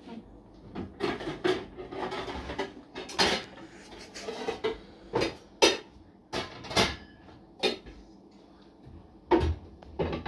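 Pots and pans clattering and knocking as they are rummaged through in a low kitchen cupboard and one is taken out, the cupboard door handled too: a string of irregular sharp knocks.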